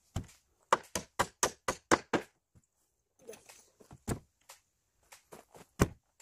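Sharp knocks on a wooden stair: a quick run of about seven, roughly four a second, then a handful more spread out, one near the end among the loudest.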